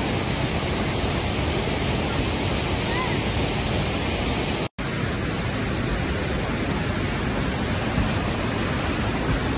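Waterfall pouring: a steady, unbroken rush of falling water. The sound drops out completely for a split second a little before halfway.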